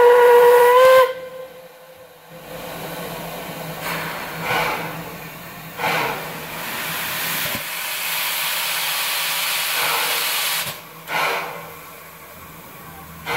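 NA class 2-6-2T narrow-gauge steam locomotive No. 6A blowing its whistle in one steady blast of about a second. After that come a few slow, separate exhaust chuffs and a long hiss of steam from the cylinder drain cocks as the locomotive readies to start away.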